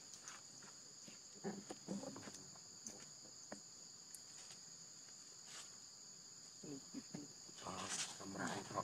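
Steady, high-pitched drone of insects in the forest, unbroken throughout, with a few soft ticks and rustles and a faint voice near the end.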